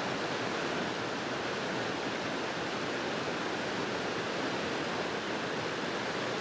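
Steady rushing of a mountain stream's water, an even continuous wash with no breaks.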